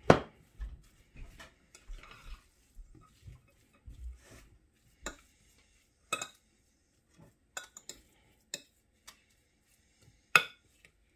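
Metal fork stirring and mashing potato in a glass bowl, with irregular clinks and scrapes of the fork against the glass. The sharpest clinks come right at the start and near the end.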